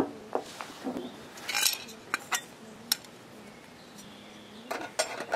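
Light metallic clinks and taps from lightweight camp-stove gear being handled: a handful of separate knocks, with a short cluster near the end.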